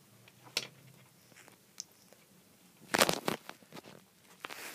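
A bag being handled and cut at with scissors: a few faint clicks, then a burst of crunchy crinkling about three seconds in and more near the end, as the bag resists opening.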